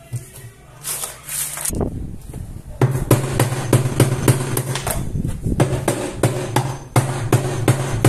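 Hammer driving a chisel into the plastic base of a washing-machine tub, which is seized onto the transmission shaft by salt buildup and being broken out in pieces. Repeated sharp blows, about three or four a second, start about three seconds in, with a short pause near the middle.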